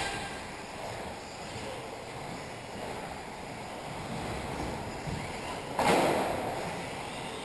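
Radio-controlled racing cars running laps on an indoor carpet track: a steady hiss of motors and tyres echoing in the hall, with a louder rush about six seconds in.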